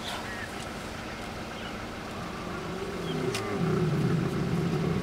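Lion growling: a low rumble that starts about two and a half seconds in and grows loudest near the end.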